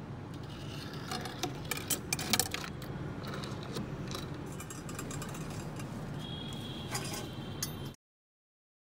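Light metallic clinks and ticks over a steady low hum, densest between one and two and a half seconds in. The sound cuts off abruptly about eight seconds in.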